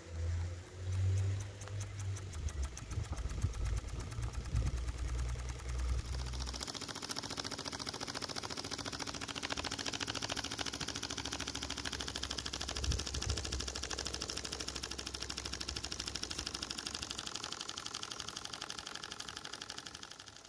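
Small homemade live steam engine running, its exhaust beat a fast, even ticking that eases slightly near the end.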